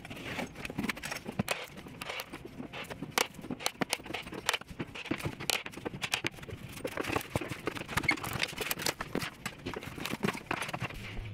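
Irregular knocks and taps of a hammer working wooden baseboard trim loose from the wall to remove it.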